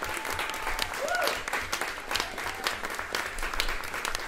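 Audience applauding after a live jazz set: dense, irregular hand-clapping, with a short whoop from the crowd about a second in.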